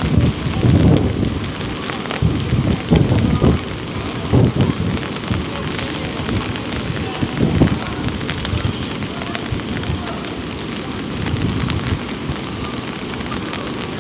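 Steady hiss of water, with irregular low rumbling surges every second or two.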